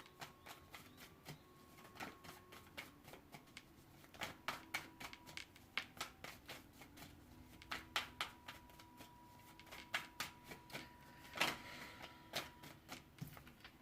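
Tarot cards being shuffled by hand: a run of soft, irregular card flicks and snaps, a few a second.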